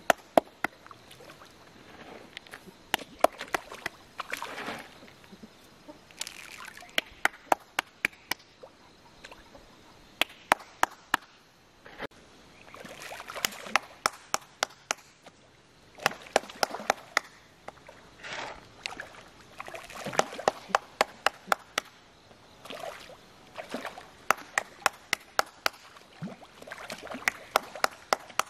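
A person clapping hands in quick runs of several sharp claps, repeated every few seconds. Softer splashing and sloshing from fish at the pond surface comes between the runs.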